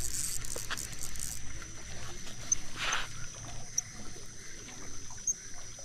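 Outdoor riverbank ambience: a steady high-pitched drone with a few short chirps, some low rumble in the first two seconds, and a brief rasping rustle about three seconds in.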